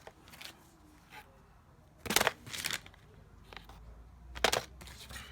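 Papers and small sample envelopes being handled and put back into a cardboard box: a few short rustling knocks, the loudest about two seconds in and another near the end.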